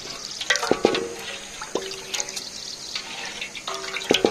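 Water splashing and dripping in a metal basin as hands swish and squeeze chopped watercress greens, lifting out dripping handfuls.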